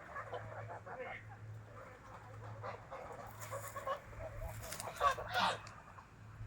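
Geese calling among themselves in a continual stream of short calls, with one louder call about five seconds in.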